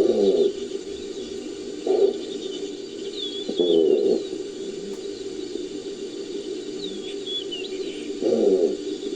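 Designed creature calls built from gazelle and wildebeest recordings: four short, low, pitched calls, the longest about four seconds in and the last near the end. A steady background drone and a few high bird chirps run beneath them.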